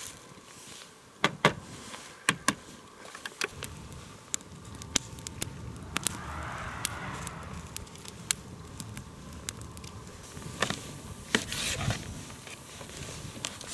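Wood campfire crackling, with sharp irregular pops and cracks; a couple of the loudest snap about a second in and again near the end.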